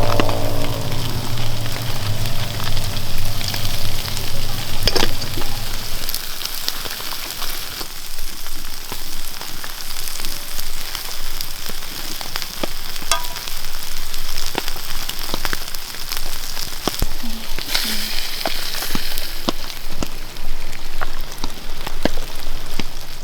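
Food sizzling over an open fire, a steady hiss with many scattered crackles. A low hum sits underneath and stops about six seconds in.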